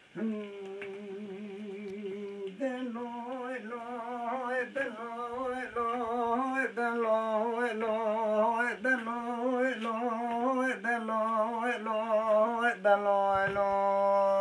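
A man singing a Kurdish uzun hava unaccompanied, in free rhythm: long held notes with a wavering, ornamented line, the phrases breaking and starting again every two seconds or so. The voice grows louder as it goes.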